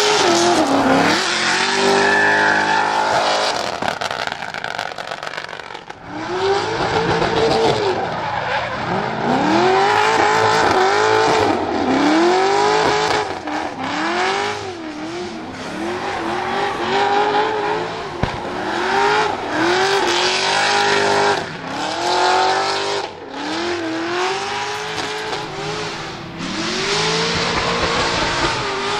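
Mast Motorsport LS7 7.0-litre V8 in a Nissan 200SX S13 drift car, revved up and dropped back over and over, about once a second, as the car slides sideways. The tyres screech under it.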